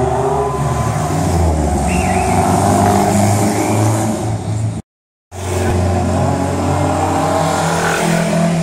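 Engines of small classic Italian sports cars running and revving as they drive past: a Siata Daina GS and a Fiat Laureati 1100 Sport, then a Stanguellini 750 S. The sound cuts out for about half a second a little past halfway.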